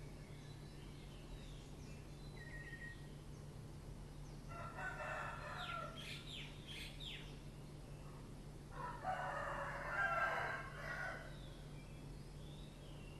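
A rooster crowing twice, each crow lasting about two seconds, the second starting about four seconds after the first and a little louder.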